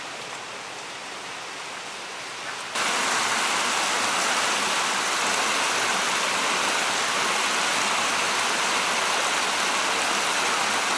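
Steady rush of flowing water. It jumps clearly louder a little under three seconds in.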